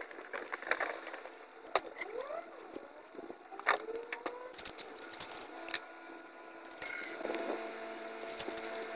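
Caulking gun dispensing self-leveling sealant into a sidewalk joint, its trigger clicking sharply about every two seconds. A faint steady hum sets in near the end.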